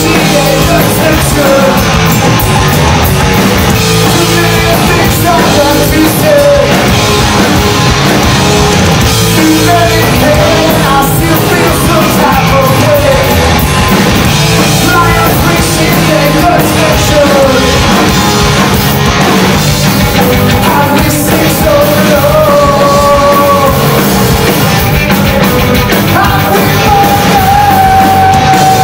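Live rock band playing: a singer's vocals over electric guitars and a drum kit, with a long held note near the end.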